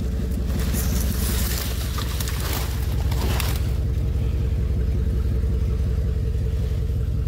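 Pickup truck engine idling steadily. For the first three and a half seconds, dry palm fronds and brush rustle and crackle as they are dragged off the truck bed.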